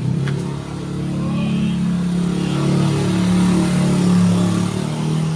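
A steady low engine-like hum, loud and even, swelling slightly in the middle.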